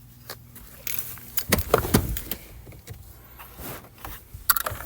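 Clicks, knocks and rattles of handling at a car, over a steady low hum that stops about two seconds in.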